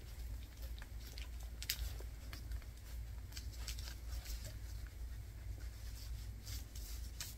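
Fingers pressing and smoothing a Tear-Aid Type A adhesive patch onto a wing's canopy fabric to push out air bubbles: faint scattered rustles and crinkles, with one sharper click about a second and a half in, over a low steady hum.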